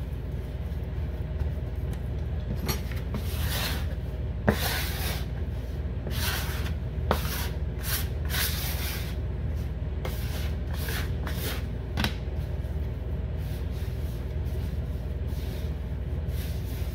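Hands kneading a flour-and-water dough on a floured countertop: irregular soft rubbing and scraping of the dough against the counter, with a plastic bench scraper scraping the surface and a few sharp knocks, over a steady low hum.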